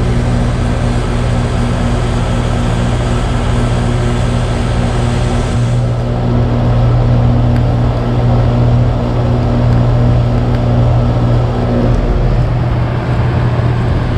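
Goodman central air conditioner condensing unit running steadily: a low compressor hum under the rushing air of the condenser fan. The hum shifts slightly about halfway through and again near the end.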